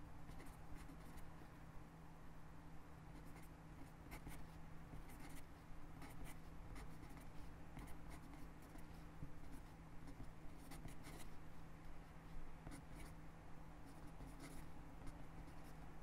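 Sharpie pen writing cursive on lined notebook paper: faint scratching of the tip in short, irregular strokes with brief pauses between words, over a low steady hum.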